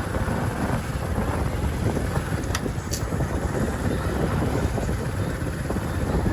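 Steady low rumble of street traffic, with two short clicks close together around the middle.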